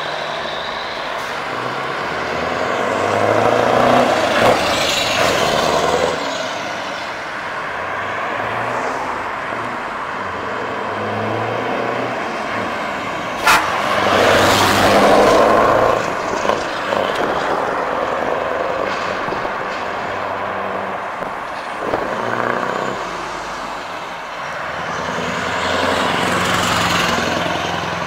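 Heavy trucks, Scania tractor units among them, driving past one after another on open exhausts; the engine sound swells and fades with three passes. A single sharp crack comes just before the middle pass.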